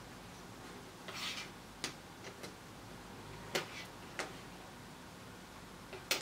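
A small circuit board and its parts being handled by hand: a brief rustle about a second in, then a handful of light clicks and taps as the board is moved and set down on a cutting mat, the sharpest near the end.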